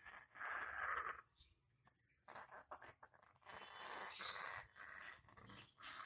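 Zebra finches fluttering and scrabbling against wire cage mesh: several bursts of noisy rustling, each up to about a second long, with short quiet gaps between.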